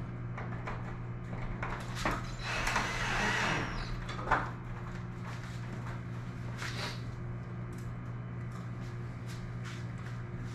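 Cordless drill driving a self-tapping screw into an aluminium garage door panel: a grinding burst of about a second and a half, then a sharp clack, with a few light knocks after. A steady low hum runs underneath.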